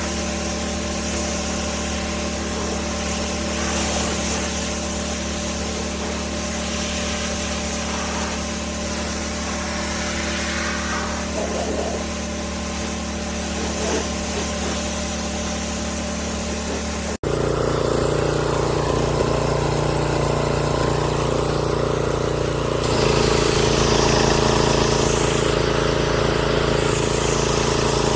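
Pressure washer's motor and pump running with a steady drone. The sound cuts abruptly about seventeen seconds in and resumes louder with a different tone.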